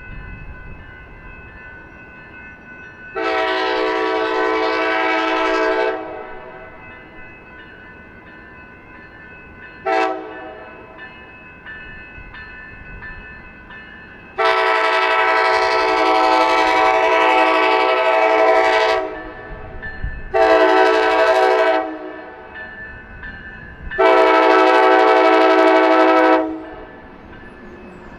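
Passenger locomotive's multi-chime air horn, a Nathan K5LA, sounding for a grade crossing. It gives a long blast, a brief toot, another long blast, a short one and a final long blast, with a faint steady hum underneath.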